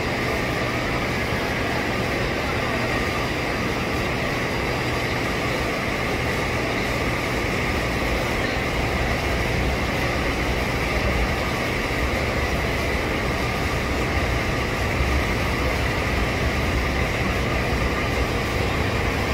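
Extension-pole electric polisher running at a steady speed, its buffing pad working against the aircraft's painted skin: an even motor whine over a low rumble.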